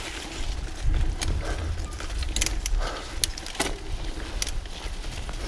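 Mountain bike riding along a dirt forest singletrack: a steady low rumble from the rolling bike, with scattered sharp clicks and rattles from the bike as it goes over bumps.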